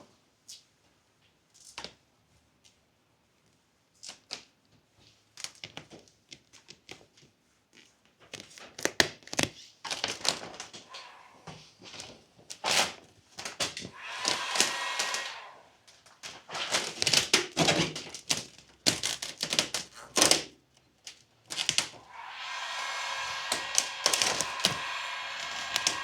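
Irregular clicks, knocks and rattles of hand work with tools and parts, sparse at first and then dense. A steady whirring noise comes in about four seconds before the end.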